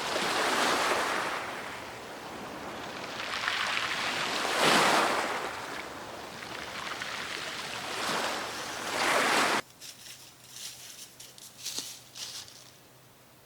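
Sea surf washing onto the shore in surges every three to four seconds. It cuts off suddenly about two-thirds of the way through, leaving a few faint clicks and rustles.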